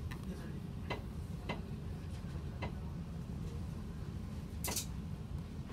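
Steady low rumble inside a bus cabin, with a few sharp clicks at irregular intervals, the loudest and longest near the end.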